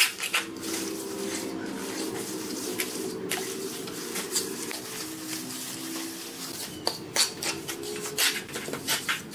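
Hand float rubbing and scraping across wet cement mortar, smoothing the screed in repeated back-and-forth strokes.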